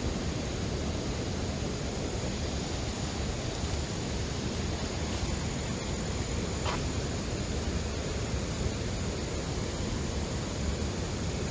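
Steady rushing outdoor background noise without a break, with one faint tick about two-thirds of the way through.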